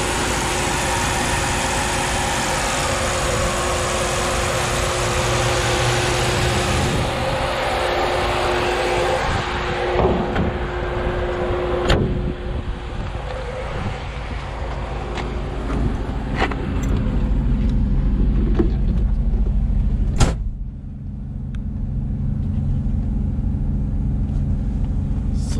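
Idling V8 of a 1956 Ford Thunderbird with its newly fitted Flex-A-Lite Flex-Wave electric puller fan running behind the radiator, lots of air rushing out past the fender. The rush fades after several seconds. Sharp clunks follow about 12 seconds in, as the hood is pressed shut, and a louder one about 20 seconds in, a car door shutting; after that the idle is heard muffled from inside the cabin.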